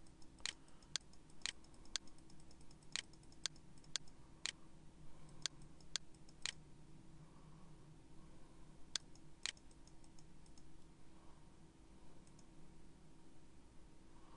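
Computer mouse button clicking about twice a second in short runs, stopping after about ten seconds, over a faint steady hum.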